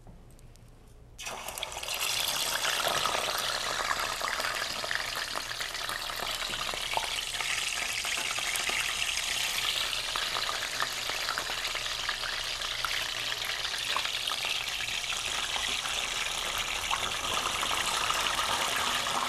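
Pieces of fish going into hot oil in a stainless steel frying pan: the oil starts to sizzle suddenly about a second in and keeps up a steady sizzle. The oil is hot enough to fry the fish.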